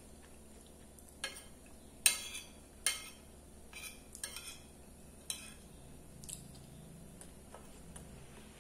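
Metal spoon clinking and scraping against a ceramic plate while food is scooped up: several sharp clinks, the loudest about two seconds in.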